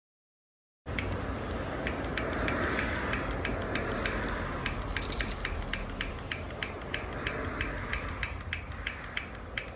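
A steady, rapid run of mechanical clicks, about four or five a second, over a low steady rumble; it starts abruptly about a second in.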